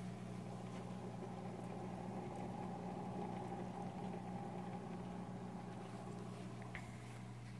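Steady electrical hum of the aquarium's running canister filter motors, a low mains drone with a faint higher whir above it. There is a light click near the end.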